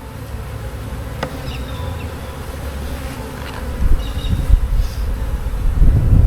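Swarm of honeybees buzzing around an opened beehive, a dense hum that grows louder about four seconds in.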